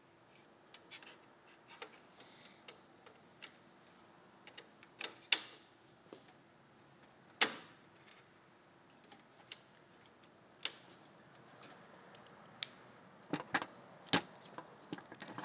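Irregular sharp metal clicks and taps of a small hand tool working the pivot pin back through the swing plate gear and spacer of an HP LaserJet 4250 printer, with a few louder knocks about five, seven and fourteen seconds in.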